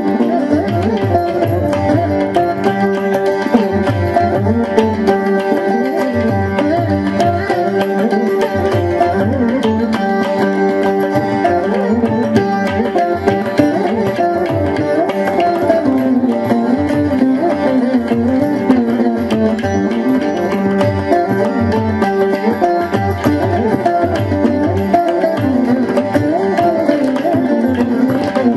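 Instrumental veena music: a plucked melody with sliding, bending notes over a steady drum rhythm.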